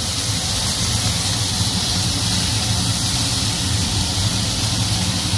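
Rib-eye steaks sizzling in a frying pan over the highest gas flame, a steady hiss while the meat sears and caramelizes.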